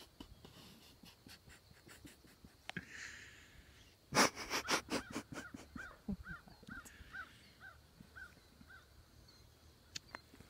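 Animal calls: a loud harsh call about four seconds in, followed by a run of about eight short, evenly spaced arched notes that fade away.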